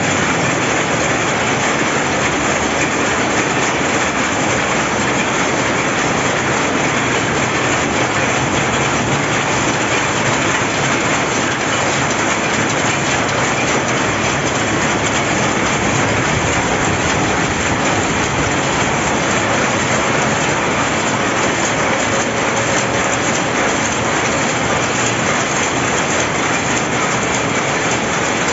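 Jacquard power loom running: a loud, steady, dense mechanical clatter that goes on without a break.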